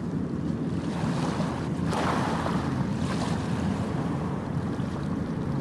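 Steady low rushing noise like surf or wind, with a brief swell of hiss about two seconds in.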